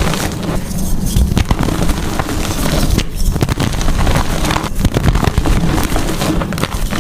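Blocks of gym chalk being crushed and crumbled, a dense, irregular crunching crackle with no pause.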